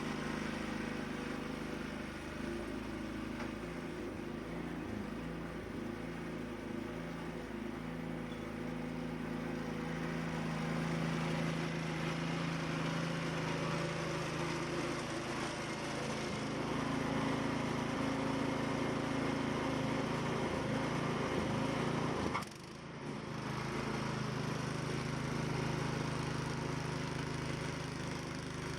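A small engine running steadily, with a brief sharp drop in level about 22 seconds in before it picks back up.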